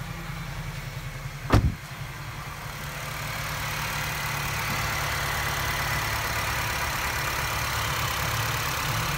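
Honda City GM5's four-cylinder engine idling, with a car door shutting in one sharp thump about a second and a half in. From about three seconds in the engine sounds louder, with a hiss and a faint steady whine, as it is heard at the open engine bay. The radiator fan is not running.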